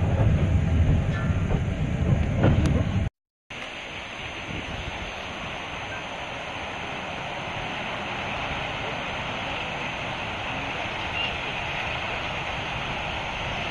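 Loud low rumble of a moving train heard from on board, cut off after about three seconds. Then a quieter steady hiss that slowly grows louder as New Zealand steam locomotive J 1211 approaches.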